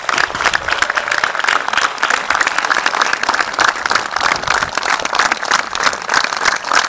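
Audience applauding: many people clapping at a steady, dense pace.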